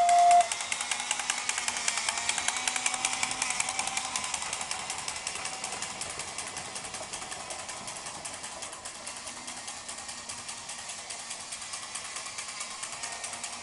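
Battery-powered Echo Toys radio-control toy train running on its track: a small motor and gears whirring, with a fast, even clicking. It fades through the middle and grows louder again near the end. A steady whistling tone cuts off right at the start.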